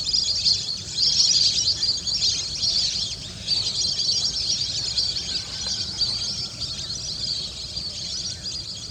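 A dense, continuous chorus of many high chirping bird calls, with a low rumble underneath.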